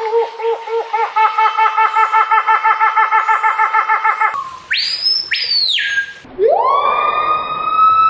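Loud calls, one after another. First a rapid run of pitched notes, about seven a second, for about four seconds. Then a shrill, high whistle rises and falls, and a long siren-like wail rises and holds near the end.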